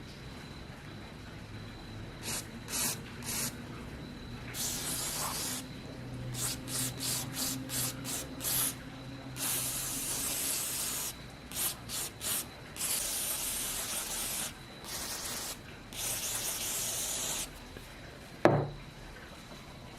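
Aerosol spray can hissing in a series of bursts, first several short squirts, then longer sprays held for a second or two. A single sharp knock comes near the end.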